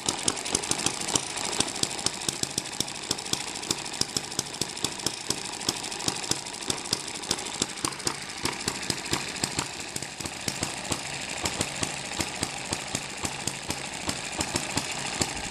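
M94 model hit-and-miss engine, a small four-stroke gas engine, running with a fast, even train of sharp pops over a steady mechanical clatter.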